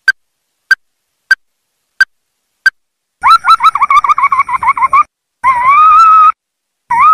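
Ruddy-breasted crake calling: five short, evenly spaced notes, then a rapid run of rising notes for about two seconds, then a longer call that rises and levels off, with another beginning near the end.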